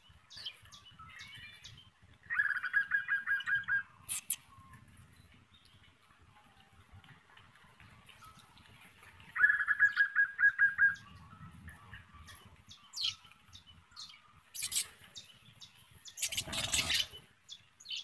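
Budgerigar in a nest box giving two bursts of rapid, evenly pulsed chattering calls, with scattered clicks. A loud rustling scrape in the nesting material near the end.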